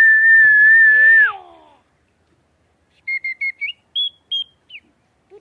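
A long, steady whistled note that slides down as it ends after about a second and a half, followed by a quick run of short chirps that step up in pitch.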